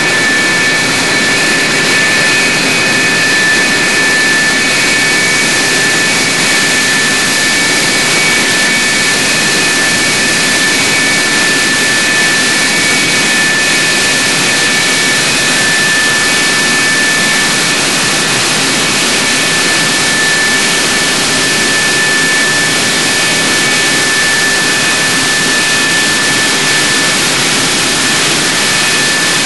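F-104 Starfighter's J79 turbojet running at ground idle: a steady, loud jet whine with high whistling tones over a wide rushing hiss, echoing inside a concrete aircraft shelter.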